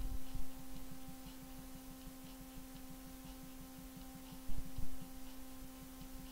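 Steady low electrical hum, with a faint quick pulsing underneath and dull low bumps at the start and about four and a half seconds in.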